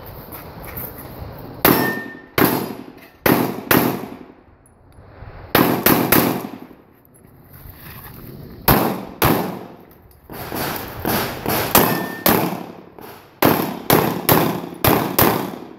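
A 9mm Glock 34 pistol firing a stage: around twenty sharp shots, mostly in quick pairs and runs of three or four about a third of a second apart, with short pauses between strings while the shooter moves. Each shot rings on briefly in echo.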